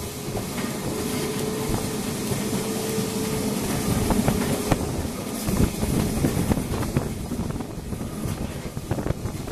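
A traditional Lisbon electric tram running along street track, heard from on board: the rumble and rattle of the car with clacks from the wheels on the rails, and a steady whine for the first few seconds.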